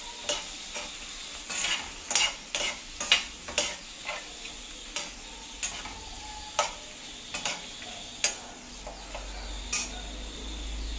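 A stainless-steel spoon scrapes and knocks against a metal kadai as shallots, tomato and dried chillies sauté in oil, with a steady sizzle underneath. The knocks come often at first, then more sparsely, and stop about eight seconds in while the sizzle goes on.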